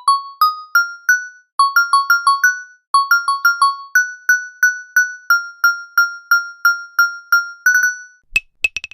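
A simple melody of short, high notes played on a keyboard-like instrument, each struck sharply and dying away, about two to four notes a second. A few sharp clicks come near the end.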